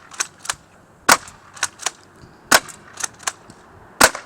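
Airsoft shotgun that fires three BBs per shot, firing repeatedly: three sharp cracks about a second and a half apart, each followed by a couple of lighter clicks.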